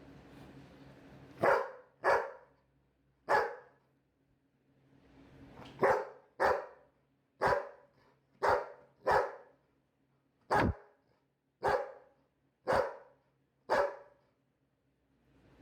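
Labrador dog barking about a dozen times, single loud barks roughly a second apart with short pauses between them.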